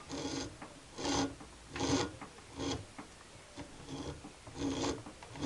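Wire stripping machine pulling insulated scrap wire through its blade, slitting the insulation: a rasping, squeaky grinding that comes in strokes about once a second as the wire is drawn through.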